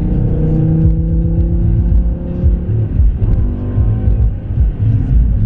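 BMW M5 E60's V10, fitted with Dinan throttles, airbox and stage 2 ECU, accelerating hard, heard from inside the cabin. The note climbs steadily, breaks off briefly about three seconds in, then comes back lower and climbs again, as with an upshift in the manual gearbox.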